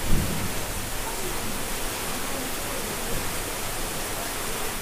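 Steady hiss of background recording noise, with a single dull thump at the very start.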